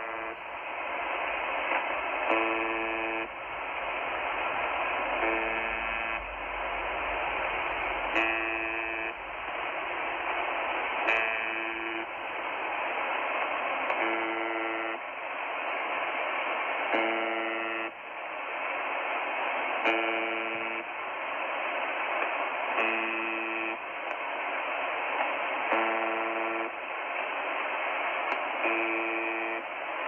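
Russian shortwave station UVB-76, 'The Buzzer', received on 4625 kHz upper sideband through a Tecsun H-501x portable receiver. A short buzz sounds about every three seconds, ten times, over steady band hiss.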